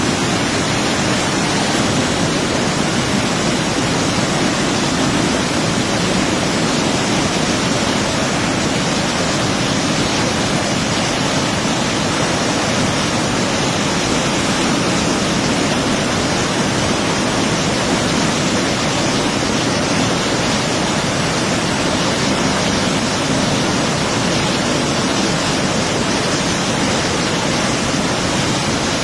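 Floodwater released from Mettur Dam rushing and roaring steadily, a loud, even, unbroken noise of heavy water.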